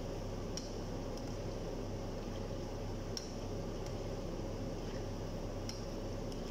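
Small dough balls frying in oil in a pan on a gas stove, stirred with a metal slotted spoon: a steady low hum and frying noise, with three short sharp clicks.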